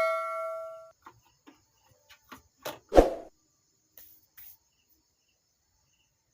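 A struck metal part rings with several clear tones and dies away over the first second, then scattered light clicks and one louder knock about three seconds in: metal parts and tools being handled as the amplifier board is fitted back into its chassis.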